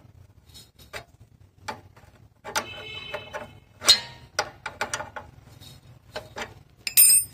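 Steel spanner clicking and clinking on the motorcycle's rear drum-brake rod adjuster nut as it is turned and repositioned a little at a time to slacken the brake. There is a short ringing clink about three seconds in and a sharper, brighter one near the end.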